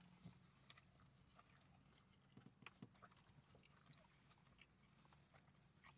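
Faint chewing of a mouthful of chicken Big Mac, with scattered soft wet clicks and smacks. A low steady hum sits underneath.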